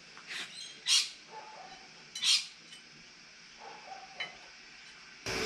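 Hand tools clinking and scraping on steel as bolts on a disc brake caliper bracket are done up: a handful of short, sharp metallic clinks, the loudest about one second in and just past two seconds in.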